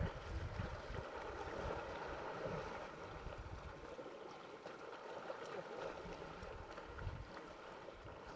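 Wind buffeting the microphone in low gusts, strongest at the start and again near the end, over a faint steady outdoor hiss.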